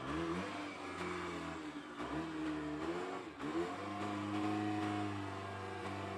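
Engine of a rough-terrain forklift fitted with a bucket, revving up and down for the first few seconds, then settling to a steady run as it drives in close, about four seconds in.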